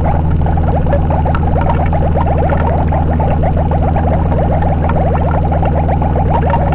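Harsh noise music: a loud, unbroken wall of distorted noise over a steady low drone, with a fast, dense crackling texture in the middle and scattered clicks on top.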